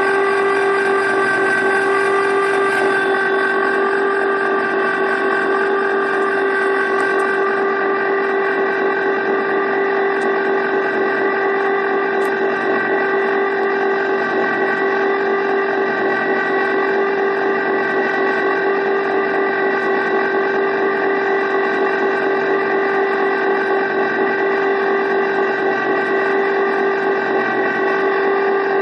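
Electric ice cream maker running steadily, its motor giving a constant hum with a strong steady tone as it churns a thickened, partly frozen batch of ice cream.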